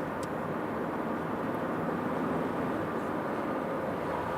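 Steady engine hum and road noise heard inside a moving car.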